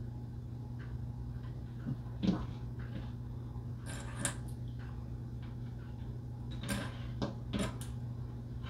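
Plastic sewing clips clicking, a handful of separate clicks as they are picked from a pile and snapped onto the edge of fabric, over a steady low hum.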